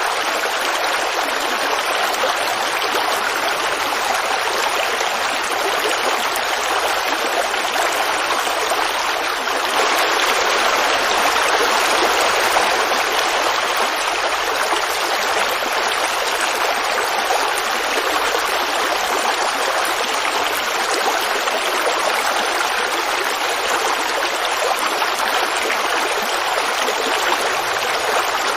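Forest creek babbling and running over its bed, a steady rush of water that swells slightly about ten seconds in.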